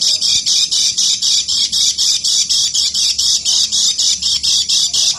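Kecial kuning white-eye giving its 'ngeker' call: an unbroken run of harsh, rasping chatter notes, about four or five a second.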